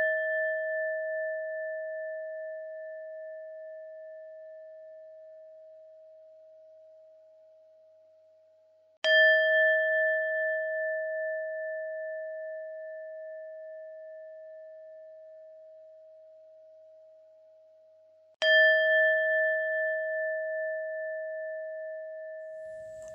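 Buddhist meditation bell ringing with a clear, steady tone that fades slowly with a slight pulsing; it is struck again about nine seconds in and once more about eighteen seconds in, each ring dying away over several seconds.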